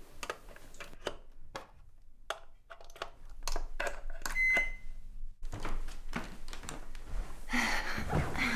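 A run of sharp clicks and light knocks as a plug is worked at a wall socket, then a short high electronic beep about four and a half seconds in. After the beep a steady hiss sets in.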